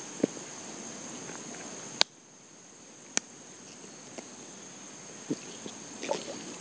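Steady high-pitched insect chorus, with a few sharp clicks and soft knocks; the loudest click comes about two seconds in.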